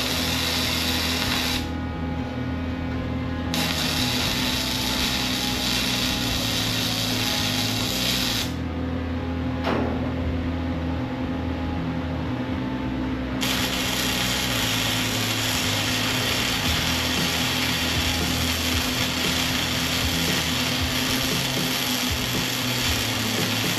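Flux-core wire-feed welder arc crackling in runs on steel, stopping sharply twice for a few seconds and starting again. Background music plays underneath.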